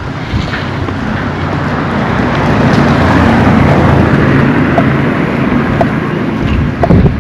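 A motor vehicle passing close by: engine and tyre noise rise over the first few seconds, then fade.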